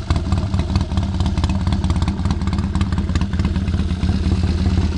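Triton motorcycle's Triumph parallel-twin engine idling steadily through open-chamber mufflers, warmed up with the chokes off after a cold start.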